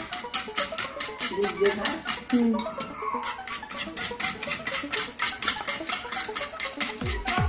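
Wire whisk beating eggs in a stainless steel bowl, its wires clicking against the metal in a fast, even rhythm of about five strokes a second.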